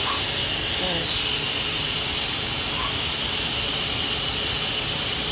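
Pet blow dryer running steadily, a constant airy rush of a motor-driven blower.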